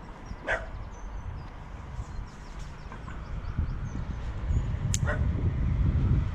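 Outdoor ambience: a low rumble of wind and road traffic that grows louder toward the end, with faint high bird chirps and two short sharp sounds, about half a second in and about five seconds in.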